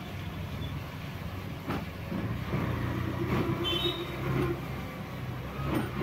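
Street traffic: a motor vehicle engine running close by, a steady low hum that grows louder about two and a half seconds in, over general road noise.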